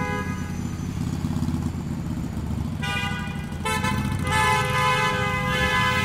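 Busy city street traffic: a steady rumble of engines, with car horns honking from about three seconds in. Several horns of different pitches are held together near the end.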